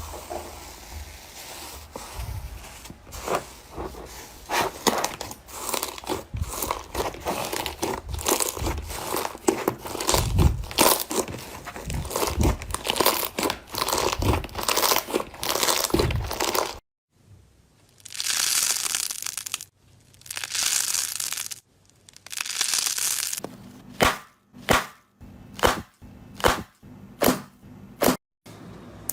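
Slime being pressed and handled, crackling with dense popping clicks for most of the first half. After a short break come a few longer hissing squishes, then a run of separate sharp pops near the end.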